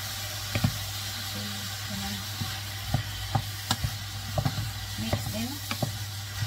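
A wooden spatula stirring diced vegetables and prawns in a nonstick pot, the food sizzling with a steady hiss, and the spatula knocking against the pot now and then. A steady low hum runs underneath.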